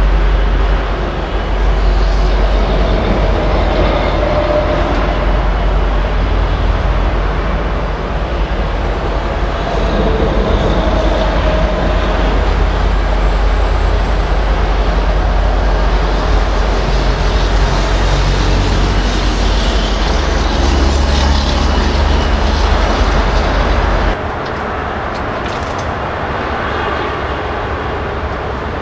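Freight train passing behind a Norfolk Southern EMD SD50 diesel locomotive: a steady, loud, heavy rumble of engine and rolling cars, with a faint high whine rising and falling midway. The deep rumble drops away suddenly near the end, leaving a lighter rolling noise.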